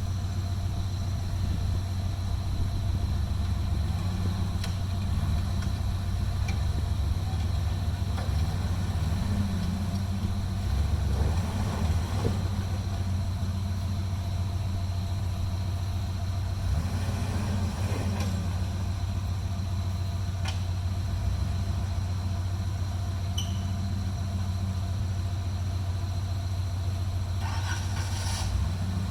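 Off-road Jeep's engine running steadily, with a few scattered knocks and rattles and a short cluster of them near the end.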